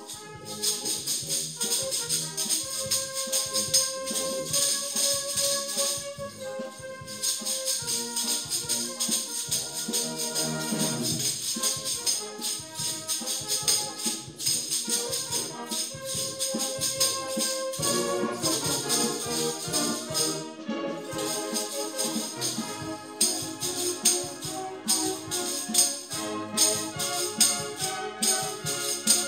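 Timbrels (hand-held tambourines) shaken and struck in a rhythmic routine over recorded orchestral backing music. The jingling stops briefly twice.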